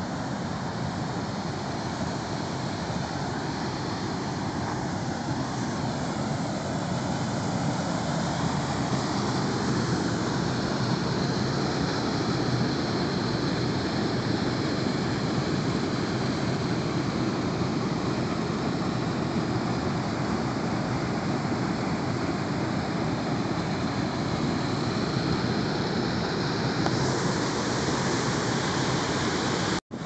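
Low Force waterfall on the River Tees: peat-brown water in spate rushing over a broad series of low rock ledges, a dense, steady noise of churning whitewater that grows a little louder after several seconds.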